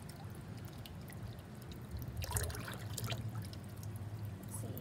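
Small splashes and drips at the surface of a garden fish pond as shrimp are fed to the fish, over a low steady rumble; a quick cluster of splashes comes about two seconds in.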